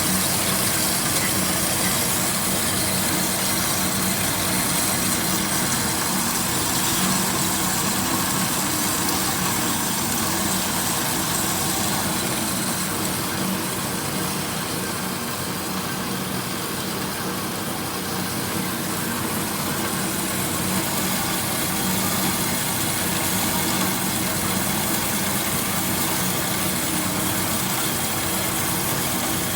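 Metal-cutting bandsaw running steadily: a constant hum with a high hiss over it, easing slightly in the middle.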